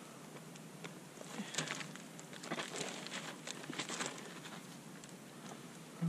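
Ballistic gelatin blocks being handled and turned over on a folding table: scattered soft knocks and rustles, clustered in three short bursts.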